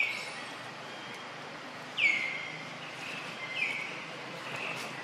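Three short, high-pitched animal calls, each falling in pitch. The second, about two seconds in, is the loudest, and they sound over a steady outdoor background.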